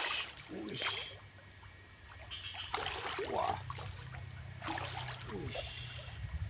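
Hooked giant gourami thrashing at the surface on a fishing line: several separate splashes and sloshes a second or two apart, over a steady high insect drone.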